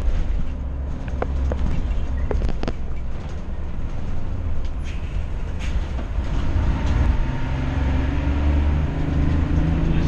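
Steady low road and engine rumble inside a moving car, with a few short knocks in the first three seconds. About eight seconds in, an engine note starts to climb in pitch as the vehicles speed up.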